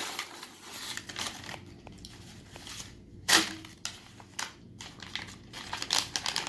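Sandwich wrapper being unwrapped, with irregular crinkling and rustling of paper or foil and one louder sharp crack a little past halfway.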